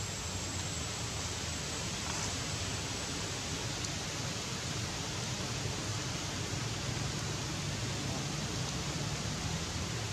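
Steady background hiss with a low hum underneath and no distinct events.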